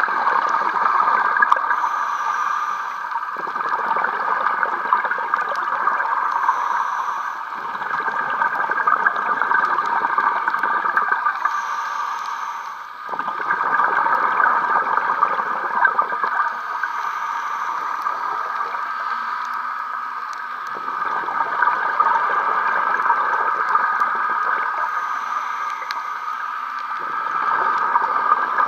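Scuba diver breathing through a regulator underwater: bursts of exhaled bubbles gurgling for a few seconds at a time, about every five seconds, over a steady hiss.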